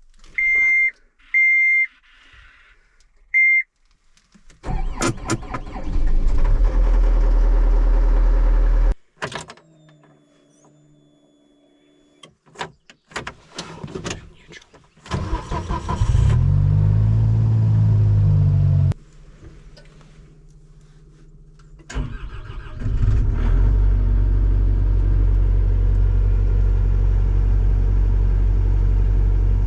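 Engines of ranch equipment running in several separate stretches that cut in and off abruptly, one of them rising and falling in pitch. Three short electronic beeps come in the first few seconds.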